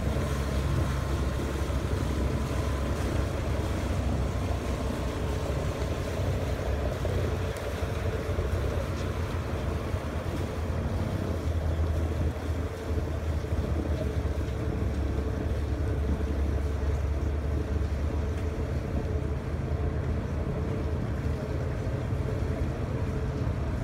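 Low steady rumble of wind on the microphone mixed with the engine of a replica caravel motoring out of a river lock with its sails furled; a faint steady hum runs over the rumble.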